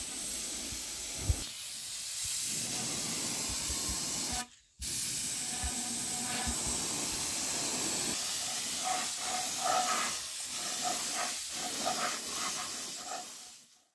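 A steady hiss, like a jet of air or spray, cut off abruptly about four and a half seconds in, resuming a moment later and fading out near the end.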